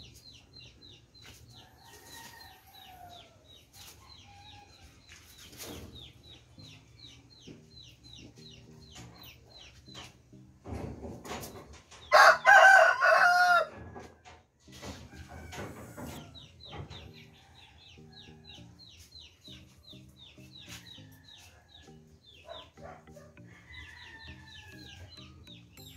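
A rooster crows once, loudly, about twelve seconds in, over a steady run of rapid high chirping.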